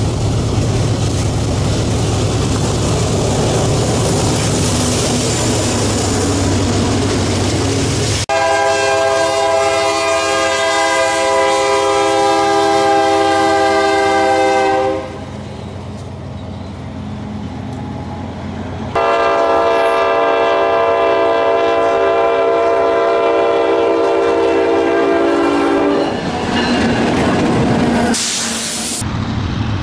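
Diesel locomotive air horns: a long horn blast sounds about 8 seconds in, and after a short lull a second long blast follows. Before the first blast there is a steady noisy rumble of a passing train.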